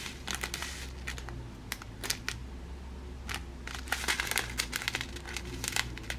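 Small plastic packets crinkling as they are handled, with scattered sharp crackles and clicks.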